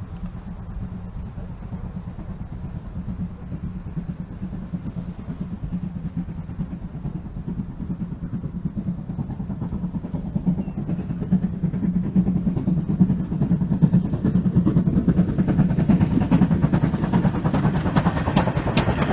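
GWR Churchward 4300-class 2-6-0 mogul steam locomotive No. 7325 working a passenger train, its exhaust beating rapidly and growing louder as it draws near. Sharp clicks from the wheels on the rails join in near the end.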